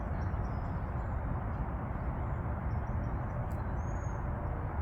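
Steady outdoor background noise with a low rumble, with a few faint, short, high bird chirps over it, one about four seconds in.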